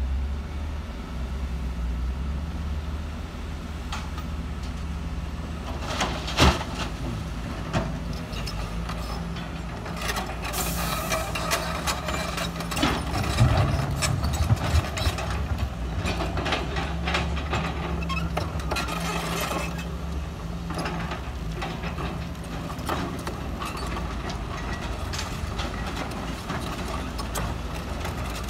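Diesel engines of Sumitomo SH210 hydraulic excavators running steadily while they dig and load a dump truck, with clatter and knocks of rock and laterite soil scraping and dropping. A sharp knock comes about six seconds in, and the clatter is thickest between about ten and twenty seconds in.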